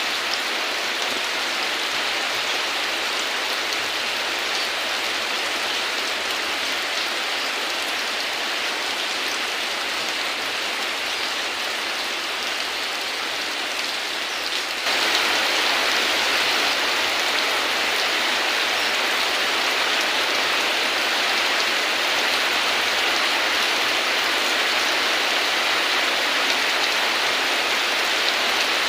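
Heavy rain falling in a steady hiss. About halfway through it abruptly becomes louder and brighter.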